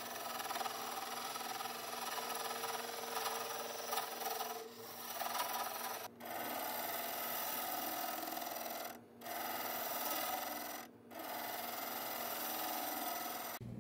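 A turning tool cutting a spinning wood blank on a lathe: a steady shearing hiss broken by a few short pauses as the tool leaves the wood.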